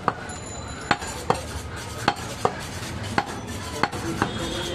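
Large butcher's knife chopping goat meat on a round wooden stump block: about eight sharp chops at uneven spacing, each the blade knocking through the meat into the wood.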